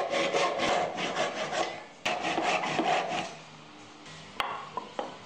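Handsaw cutting through a segmented walnut and poplar cylinder, with quick, even back-and-forth strokes. The sawing pauses briefly about two seconds in and runs for another second. A few light wooden knocks come near the end.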